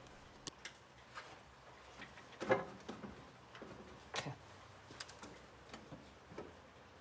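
Scattered light clicks and knocks of metal parts and hand tools being handled in a pickup's engine bay while a turbo is fitted and lined up, the two loudest knocks about two and a half and four seconds in.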